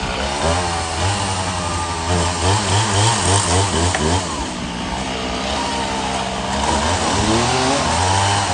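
Engine of the machinery lifting a fallen tree, revving up and down repeatedly over a steady low hum.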